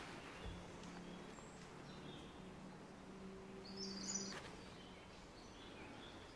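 Quiet woodland ambience with faint, scattered bird chirps and one brighter chirp about four seconds in. Under it runs a low steady hum that stops at about the same moment.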